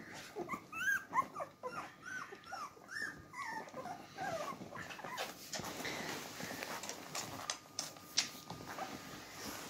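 Newborn beagle puppies whimpering in a quick series of short, high whines. About halfway through the whines give way to softer rustling and clicking as the puppies settle in to nurse.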